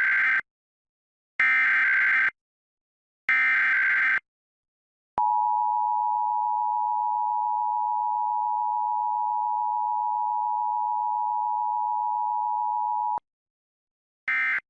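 Emergency Alert System test signal: three short, buzzy bursts of SAME header data about a second apart, then the steady two-tone attention signal held for about eight seconds. Another short data burst begins near the end, and the alert is a Required Monthly Test.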